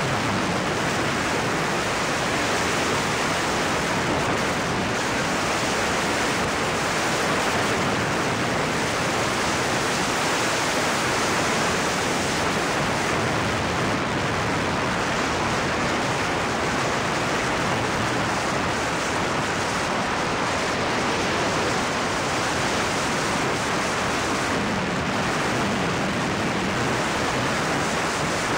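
Steady rush of wind buffeting an outside-mounted camera's microphone on a moving car, with no clear engine note.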